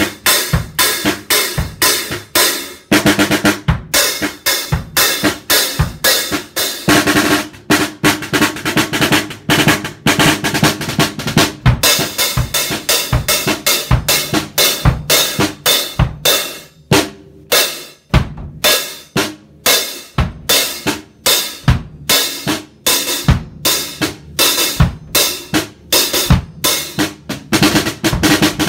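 A drum kit played with wooden sticks by a young child: a continuous run of fast strokes on the drums, with cymbals that have rubber mute pads fitted to damp them.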